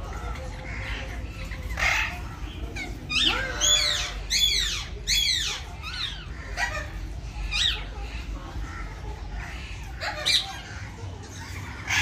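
Alexandrine parakeets calling: a quick run of loud screeching calls from about three seconds in, each call sweeping up and down in pitch, then single calls every couple of seconds.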